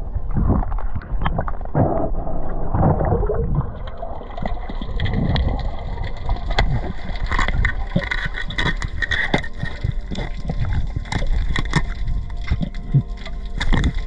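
Underwater sound picked up by an action camera: muffled water movement and gurgling. From about halfway through come many sharp clicks and knocks as a hand spear is driven into a flathead on the sandy bottom.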